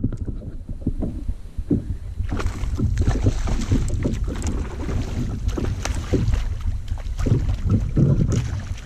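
Water splashing and slapping against a plastic fishing kayak, with knocks on the hull, while a hooked bass is fought and thrashes at the surface. A steady low rumble of wind on the microphone runs underneath.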